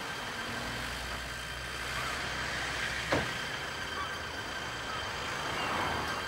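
Street traffic noise: a steady rumble and hiss of passing vehicles with a constant high tone, and one sharp click about three seconds in.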